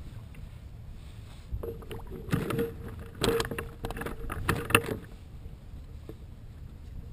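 Close rustling and knocking from a cloth being handled on a sit-on-top kayak, in a crackly run from about two to five seconds in, over a steady low rumble of wind and water.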